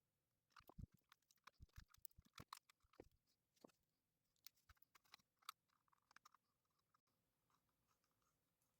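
Faint, irregular small clicks and light taps from tiny screws and a small screwdriver being handled against a drone's plastic arm. They come thick for about six seconds, then thin out to a few soft ticks.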